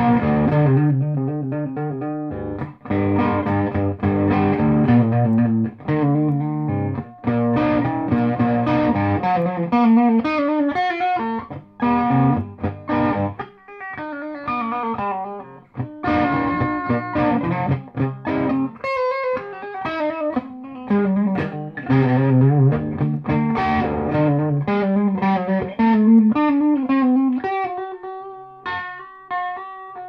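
Electric guitar with a P90 pickup and a silicon-diode tone circuit, played through a Peavey Bandit amplifier: chords and quick single-note lines, thinning to a few ringing notes near the end.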